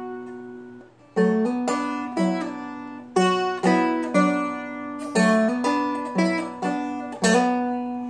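Seagull Merlin, a four-string dulcimer-style instrument, picked in a two-finger clawhammer blues style: a melody line in B minor over ringing drone strings. The notes die away briefly about a second in, then the regular picking resumes.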